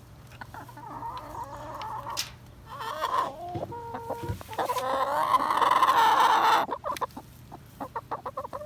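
Domestic hens clucking and squawking in long, wavering, agitated calls that build to their loudest around six seconds in and then stop: hens shut in the coop, fussing to be let out to scratch. A few faint clicks follow near the end.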